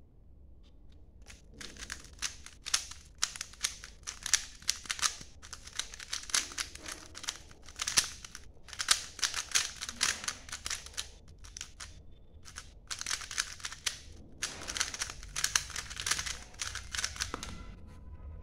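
A 3x3 speed cube being turned fast by hand in a timed solve: dense runs of clicking plastic layer turns, broken by a few brief pauses, that start about a second and a half in and stop shortly before the end when the cube is solved.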